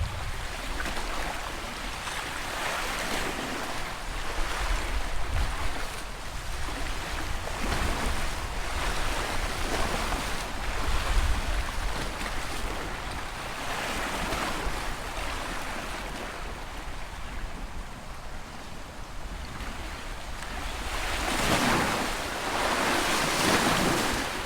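Sea waves breaking and washing in, the rushing swelling and falling back every few seconds and loudest near the end, with wind rumbling on the microphone.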